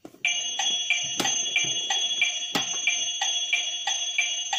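Electronic toy talking clock playing a short electronic jingle through its small speaker: a steady high beeping tone with a regular pulse about three times a second, while its plastic hands are being turned. Two sharp clicks stand out in the middle.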